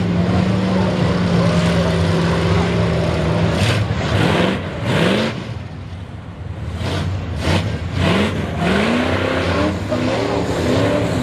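Old Ford two-wheel-drive mud truck's engine pulling through deep mud. It holds a steady note for a few seconds, then revs up in repeated bursts, dips briefly around the middle, and climbs again as the tyres dig in.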